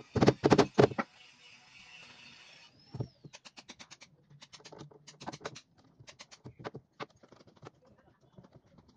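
Claw hammer driving a nail into a plywood panel: four quick, loud blows in the first second. After that come groups of faint, rapid clicks.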